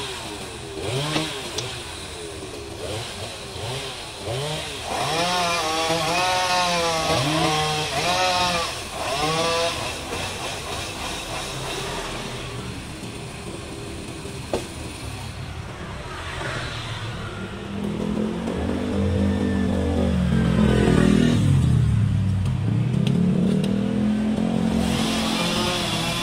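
A chainsaw revs up and down in repeated bursts as it cuts sections off the top of a tree trunk, with a sharp knock about halfway through. In the second half, a motor vehicle's engine grows louder and dips in pitch as it passes close by.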